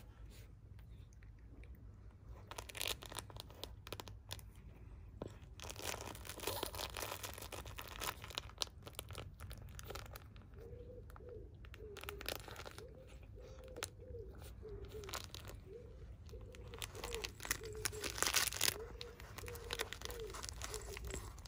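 A British Longhair cat biting and kicking a crinkly fabric toy: irregular crinkling, crunching and rustling of the toy's material, with louder flurries a few seconds in, around the middle and near the end.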